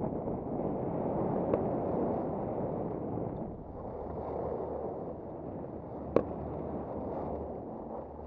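Skis sliding over groomed snow, a steady rushing hiss mixed with wind buffeting a helmet camera's microphone. A faint click comes about a second and a half in, and a sharp, loud click about six seconds in.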